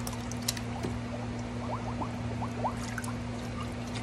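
Water pouring and splashing as a glass bottle is rinsed out in a tub of water, with a few short squeaks in the middle.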